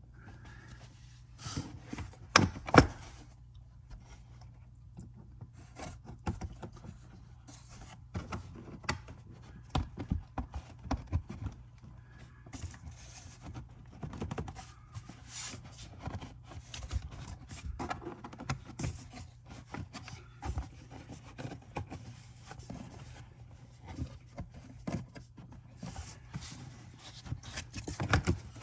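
Irregular clicks, knocks and scraping of hand tools and parts being handled while a car's under-seat battery compartment is reassembled, with two louder knocks between two and three seconds in.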